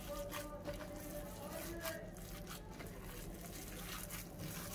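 Wet squishing and tearing of a raw minced-lamb and bulgur meatball mixture being kneaded by gloved hands in a glass bowl, in irregular strokes. A faint steady hum runs underneath.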